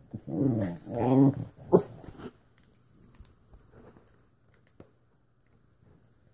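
Puppy growling over a bone: two drawn-out grumbling growls in the first second and a half, then a short sharp yelp just before two seconds in, followed by faint small clicks and rustling.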